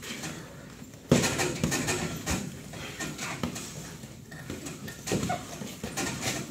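Two people grappling on a training mat: irregular scuffling of bodies and knocks against the mat, with a sharp thump about a second in and continued busy scuffling after it.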